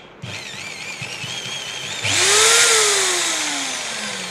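Black & Decker corded hammer drill running in clockwise rotation: a wavering motor whine, then a sudden loud run-up to speed about two seconds in, its pitch peaking and then falling slowly as the drill winds down.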